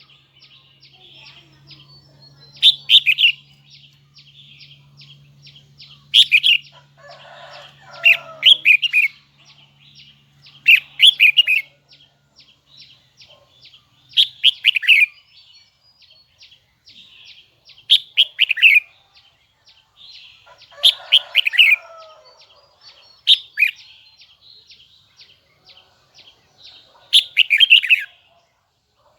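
Red-whiskered bulbul (chào mào) singing: short, loud, high phrases of quick falling notes, repeated about every three or four seconds, with soft chirping in between.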